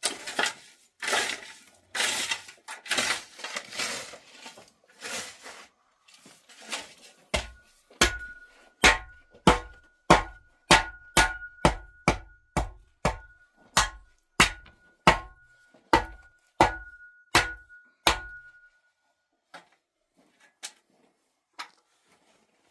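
Irregular scraping and rubbing strokes, then a run of about two dozen sharp knocks at roughly two a second, with a faint steady ringing tone above them. The knocks stop about 18 seconds in, leaving a few scattered clicks.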